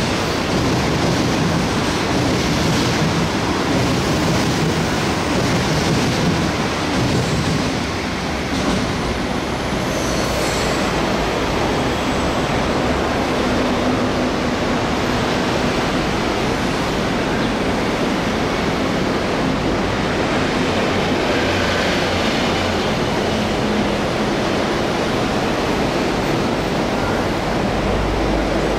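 Passenger coaches of a locomotive-hauled through train rolling past on the rails, a steady rumble of wheels and track noise that carries on as the train draws away.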